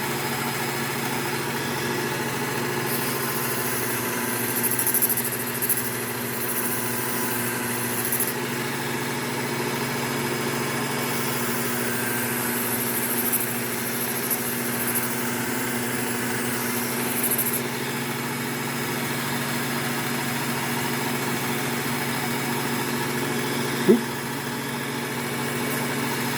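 Work Sharp Ken Onion belt sharpener's motor running steadily with a Trizact A30 belt, with two stretches of high hissing, each several seconds long, as a knife edge is drawn along the moving belt. A short knock near the end.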